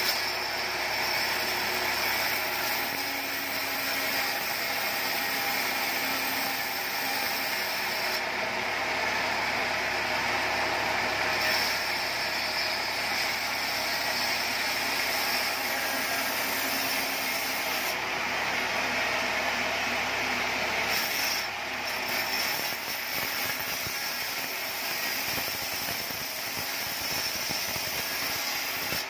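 Vertical band saw running and ripping teak into thin battens: a steady, dense sawing noise with mechanical rattle. It eases briefly about two-thirds of the way through, between cuts.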